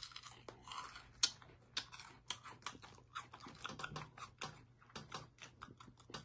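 Close-up crunching of a chocolate-coated corn snack being chewed: a quick, uneven run of crisp crunches, several a second.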